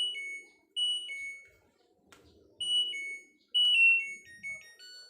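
Electronic beeper of an LG front-loading washing machine's control panel answering button presses: four two-note beeps, each a high tone stepping down to a lower one, then a short descending tune of several notes near the end. The panel and start button are responding again after the repair.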